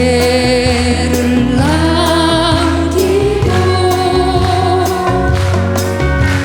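Live band music with singing: long-held sung notes with a wavering vibrato over a steady band accompaniment.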